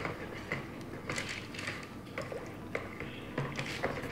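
Soap batter being stirred by hand with a switched-off Auxcuiso stick blender in a plastic container: irregular light clicks and knocks, several a second, as the blender's metal head bumps and scrapes against the container.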